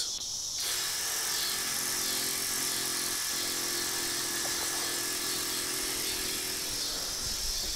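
Electric fuel pump running with a steady whirring hum, switched on about half a second in and stopping near the end, pushing fuel through the boat's fuel line before a start.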